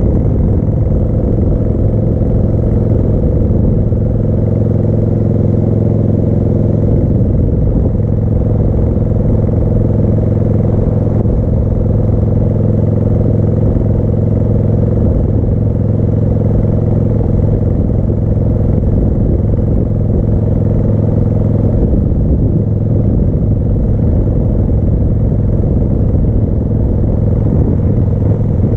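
1988 Harley-Davidson Heritage Softail's Evolution V-twin engine running at a steady road speed with a sidecar attached, its pitch and loudness holding even.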